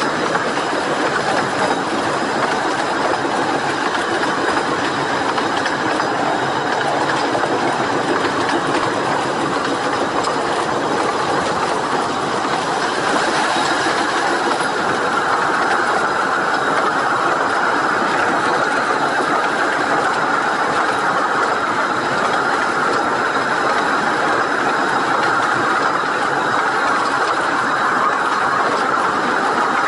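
A 15-inch gauge steam-hauled passenger train running along the line, heard from beside its carriages: a steady rattle of wheels and carriages on the track. The sound gets brighter about halfway through.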